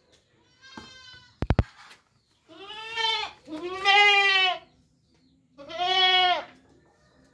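Goat bleating: a faint, higher bleat about a second in, then three loud, drawn-out bleats. A quick run of three sharp clicks falls between the first and second bleat.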